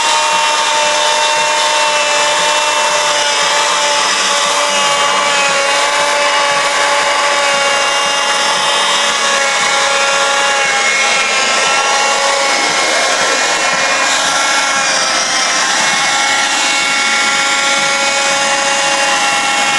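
Vacuum cleaner running without a break as it is worked over a cat's fur, a steady rushing motor noise with a high whine that wavers slightly in pitch.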